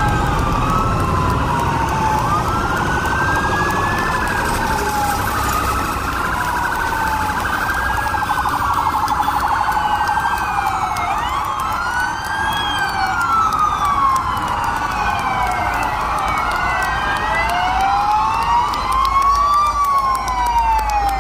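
Several fire truck sirens wailing at once and out of step, each sweeping slowly up and down in pitch, over the low engine noise of the passing trucks.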